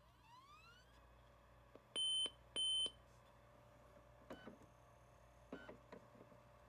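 Older laptop computer powering on: a rising whine as it spins up, then two short high beeps about half a second apart, followed by a few soft clicks over a steady hum.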